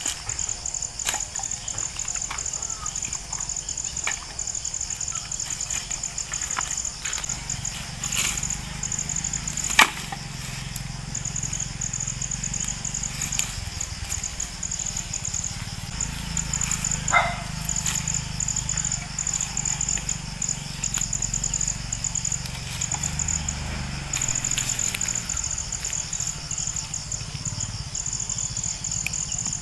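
Insects trilling in a steady, rapidly pulsing high chorus that breaks off briefly and resumes, with scattered knocks and clicks of things being handled; the loudest is a sharp knock about ten seconds in.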